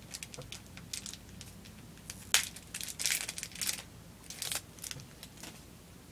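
Trading-card booster pack wrapper crinkling and tearing as it is ripped open by hand, in irregular crackly bursts, the loudest a sharp crackle about two and a half seconds in.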